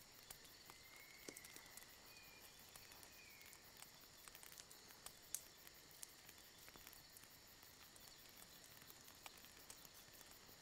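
Near silence: faint outdoor night ambience, a steady hiss with scattered faint ticks and a faint brief chirp about a second in.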